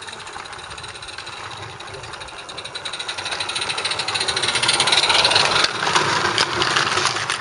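A 16mm-scale narrow-gauge live-steam model locomotive running with a rapid, even beat as it approaches and passes close by hauling its train. It grows louder to a peak about five seconds in.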